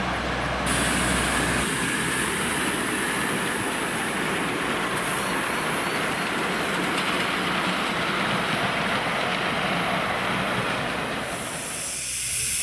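Miniature live-steam goods train running past on its track, the small wagons' wheels rolling and clacking on the rails. Near the end, a steady hiss of steam from the model 36 class steam locomotive takes over.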